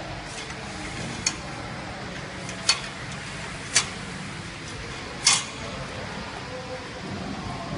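Four sharp metallic clinks, one to one and a half seconds apart, from metal parts being handled during setup of a sachet water-filling machine, over a steady background noise.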